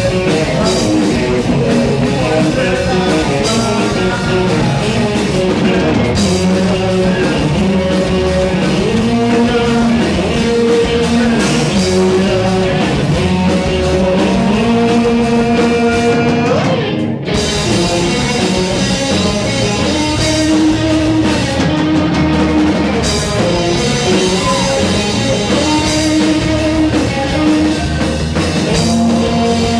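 Rock band playing live, with guitar, drum kit and a sung vocal line. There is a brief break in the sound about seventeen seconds in.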